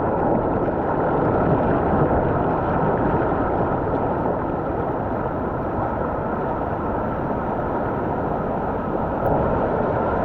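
Waterfall: a steady roar of rushing, falling water.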